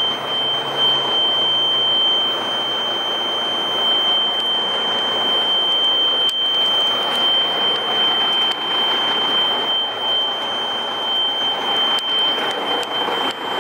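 A steady, high-pitched dashboard warning buzzer sounds without a break inside the cab of a 1998 Ford LT9522 semi truck. Under it runs the even hum and hiss of the truck's diesel engine, with a few light knocks from handling.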